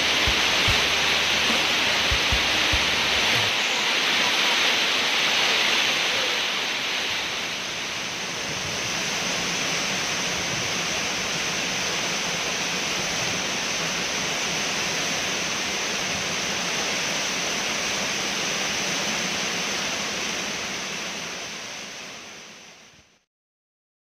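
Tall waterfall pouring onto rock: a steady, full rush of falling water that fades out near the end.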